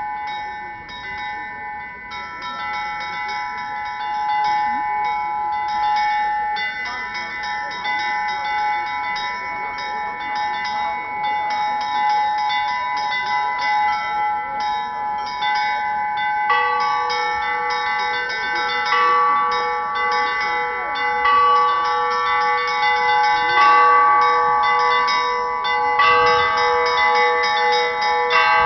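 A set of church bells rung together: the small high bells are struck in a quick repeated pattern over longer-ringing middle bells. A lower bell joins about halfway through and another a few seconds later, so the ringing grows fuller and louder.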